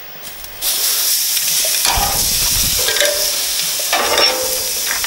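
Raw rump steak sizzling as it is laid on the hot grate of a gas grill preheated to 200 degrees, for searing. The loud, steady sizzle starts suddenly a little over half a second in.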